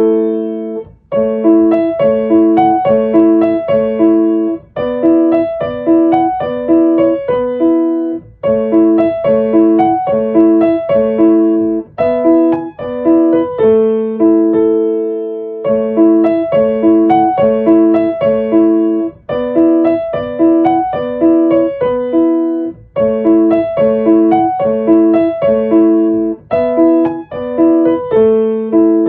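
Solo piano music: a gentle phrase of evenly paced notes, repeated over and over with small changes.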